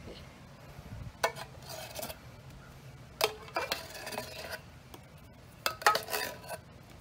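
A metal spoon scraping and clinking against the inside of a tin can as blackberry pie filling is scooped out, in three short bouts.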